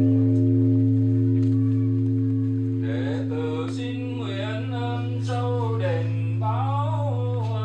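Great Buddhist temple bell (đại hồng chung) humming as it slowly fades after a strike, its low tones held steady. About three seconds in, a voice begins chanting over the hum.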